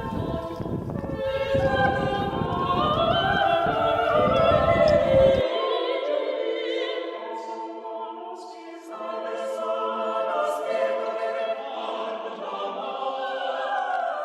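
Choral singing in a classical, operatic style, with wavering held notes. Under it is a low rumble of noise that cuts off abruptly about five seconds in.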